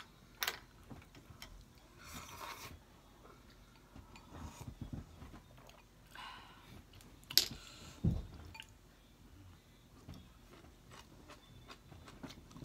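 Two people eating noodle hotpot: chewing and biting with soft mouth noises, and scattered light clicks of chopsticks and a spoon on the bowls and metal pot. One sharp knock a little past halfway is the loudest sound.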